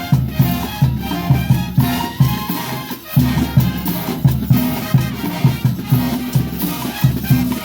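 Mexican banda music: brass over a bouncing low bass line and steady drums, with a brief break about three seconds in.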